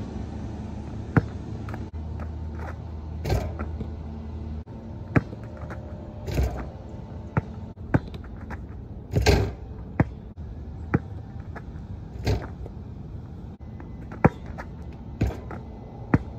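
Basketball bouncing on a perforated plastic tile court in scattered sharp smacks, with a few louder, longer ringing crashes from the rim and backboard on dunk attempts, over a steady low rumble.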